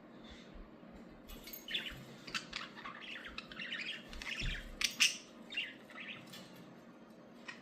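Pet birds chirping and squawking in rapid, overlapping calls, starting about a second in and dying down near the end.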